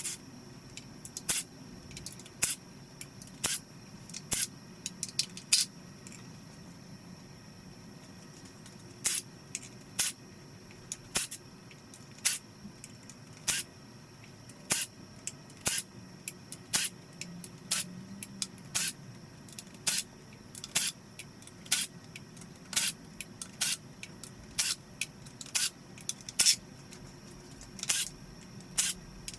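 Irregular sharp metallic clicks and short taps, roughly one or two a second, from hand tools working on the bare Nissan RB25DET engine block as the pistons are pulled out.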